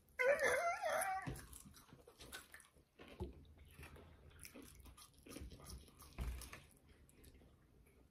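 A high, wavering, howl-like cry lasting about a second near the start, followed by faint chewing and small clicks while fries are eaten.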